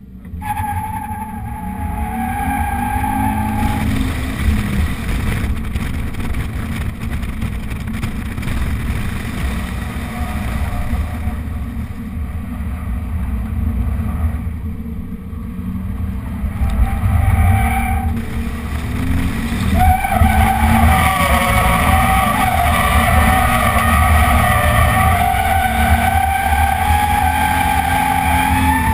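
Bone-stock 2013 Scion FR-S's 2.0-litre flat-four running hard as the car drifts, its tyres squealing in the first few seconds and again, louder, from about two-thirds of the way in, over a heavy low rumble.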